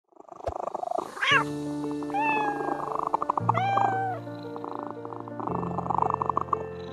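Domestic cat meowing three times: a short rising call about a second in, then two longer arching meows, over background music with held chords.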